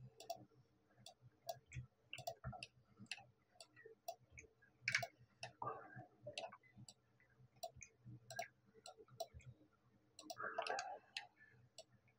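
Faint, irregular clicks of a computer mouse and keyboard, about one or two a second, as a 3D model is edited. Two short, softer sounds come in near the middle and again near the end.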